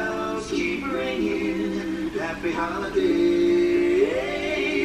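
Group of singers performing on a television broadcast, heard from the TV's speakers. The voices move through several short phrases, then hold one long note about three seconds in that slides upward near the end.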